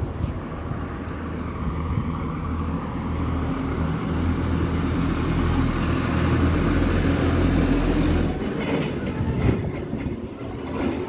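Steady low mechanical rumble with a hum in it, building gradually, then easing off after about eight seconds, like a large vehicle passing.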